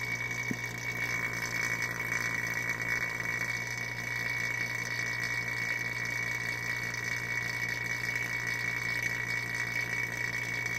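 Vacuum pump running steadily, a little bit loud, with a constant low hum and a steady high whine, drawing vacuum through a vacuum wiper motor.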